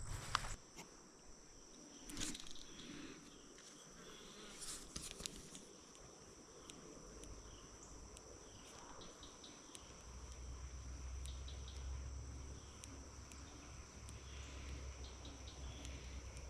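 Insects chirring in a steady high-pitched drone, with a few faint clicks and rustles in the first half and a low rumble rising in the second half.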